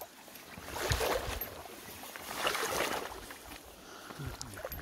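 A person wading through deep, weedy water: two soft swishing swells of water and grass against legs.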